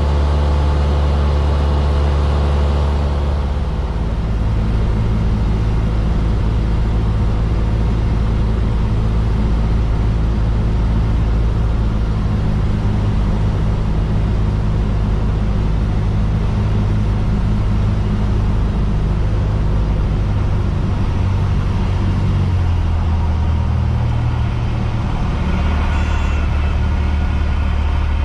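Piston engine and propeller of a light single-engine airplane droning steadily, heard inside the cockpit during approach and landing. The drone drops to a lower pitch about four seconds in and shifts again shortly before the end.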